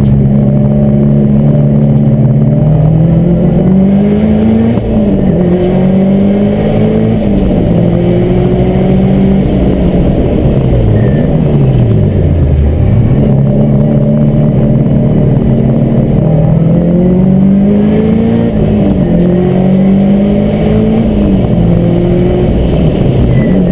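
Subaru Forester's flat-four engine driven hard, heard from inside the car's stripped cabin: its pitch climbs through each gear and drops at the upshifts, with quick lifts and re-accelerations for corners.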